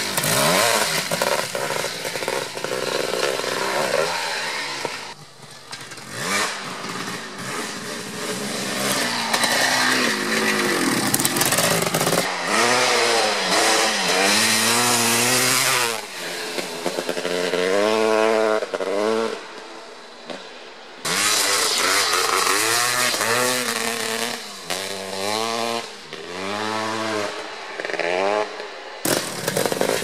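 Kawasaki KX500's 500cc single-cylinder two-stroke engine ridden hard: repeated revs that climb and drop back as the throttle is opened and shut, several in quick succession, with the sound cutting off and changing abruptly a few times.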